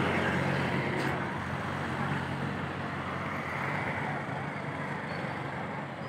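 A motor vehicle's engine running close by. Its low hum fades over the first couple of seconds and leaves a steady rush of roadside noise.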